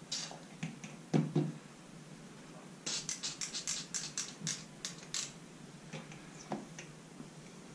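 Meat injector being handled while drawing marinade from a plastic bowl: two low knocks about a second in, then a quick run of about a dozen sharp plastic clicks over two seconds, and a few more clicks near the end.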